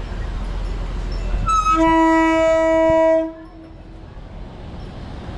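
A diesel passenger railcar sounds its horn in one steady blast of about a second and a half, starting about two seconds in, over the low rumble of the train approaching very slowly.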